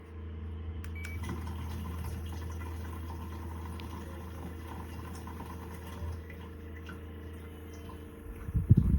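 Small battery-powered camping fan running with a steady low hum and faint ticks, with a few handling knocks near the end.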